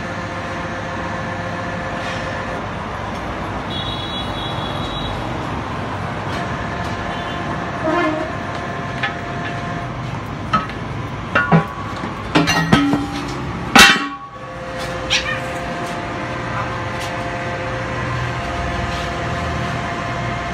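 A home-built truck tire press running with a steady mechanical drone and several held tones. A run of sharp metal clanks and knocks from the steel wheel rim and press frame comes in the middle, the loudest a hard bang about 14 seconds in.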